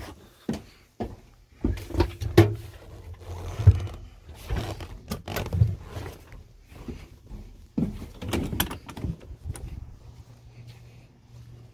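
Irregular knocks, scuffs and rustles of footsteps and a handheld phone being moved about while walking, over a low steady hum.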